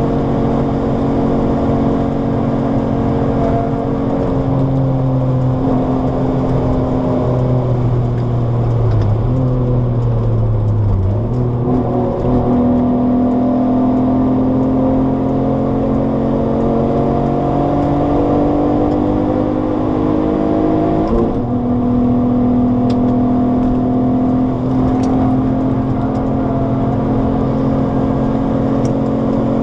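Alfa Romeo 156's Busso V6 engine heard from inside the cabin while the car is driven hard: the revs rise under load, fall away about ten seconds in, climb steadily again, then drop sharply about twenty-one seconds in before rising once more.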